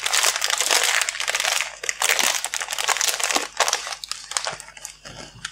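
Clear plastic packaging crinkling as hands handle a bag of flexible circular-needle cables. Dense crinkling that thins out and grows quieter in the last two seconds.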